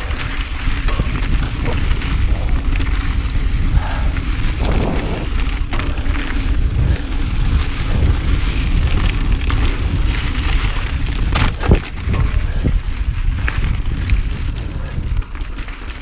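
Wind buffeting an action camera's microphone as a mountain bike rides a dirt singletrack, over tyre noise on the dirt. The bike knocks and rattles over bumps, with the sharpest knock about three-quarters of the way through.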